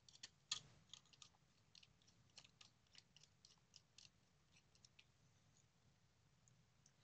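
Near silence, with faint, scattered small clicks over the first few seconds: small screws being handled and set into a circuit board's corner holes by hand.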